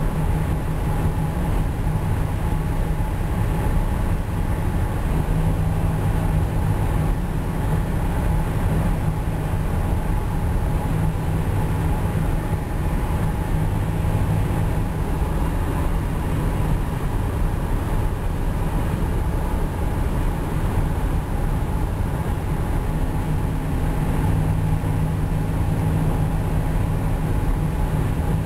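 Car with a Flowmaster aftermarket exhaust cruising at highway speed: a steady low exhaust drone over continuous road noise from Yokohama Avid tyres. The drone swells a little a few seconds in and again near the end.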